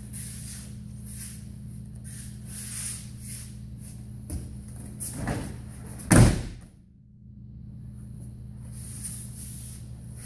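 Judo throw: the thrown partner lands a breakfall on tatami mats with one loud slap about six seconds in, after a few softer shuffles of feet and gi on the mat. A low steady hum runs underneath.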